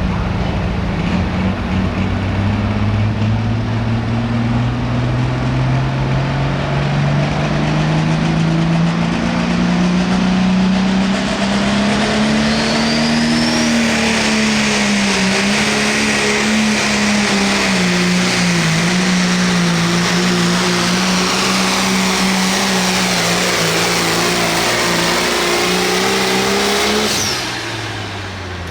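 Hot farm class pulling tractor's 510-cubic-inch diesel engine at full power down the track. Its pitch climbs steadily over the first dozen seconds, then holds and wavers under load. It drops off near the end as the pull finishes.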